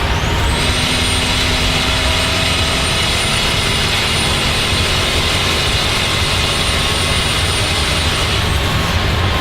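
BMW 535i E34's turbocharged M30 straight-six running hard, with a loud jet-like turbo whistle over the engine note. The whistle rises about half a second in, holds high and steady, and drops away near the end.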